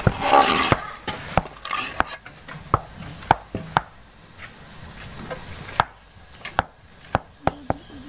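Irregular sharp knocks and taps, about a dozen, as concrete paving blocks are set and knocked into place in soft earth, with a short scrape of soil near the start.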